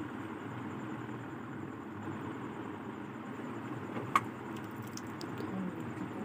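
Steady low background hum with one sharp click about four seconds in.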